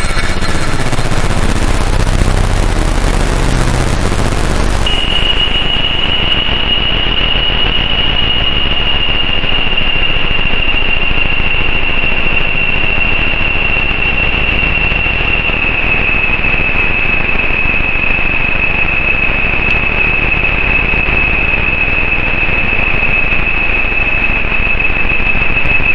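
Roland AIRA Compact S-1 synthesizer drone: a dense hiss with a low rumble under it. A very high thin tone rides on top for the first five seconds; then it stops, the hiss loses its top, and a steady piercing alarm-like tone takes over, sinking very slightly in pitch toward the end.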